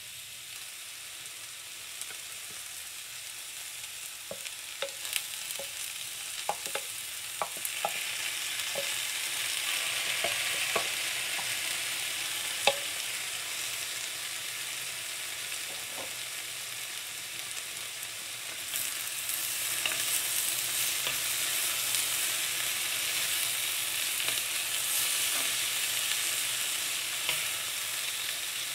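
Zucchini, carrot and onion sizzling as they sauté in oil in an enamelled pan. A run of light clicks and taps comes between about four and thirteen seconds in as diced tomatoes go into the pan, and the sizzle grows louder around eight seconds in and again just before twenty seconds, as the vegetables are stirred.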